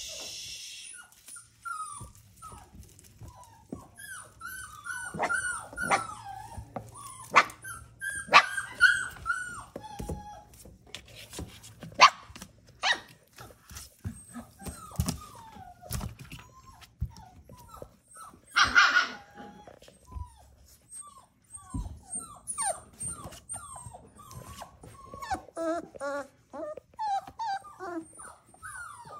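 A litter of young standard poodle puppies playing together: many short, high falling squeals and yips mixed with small growls. Scattered sharp knocks and clicks come throughout, with a brief noisy rustle about two-thirds of the way through.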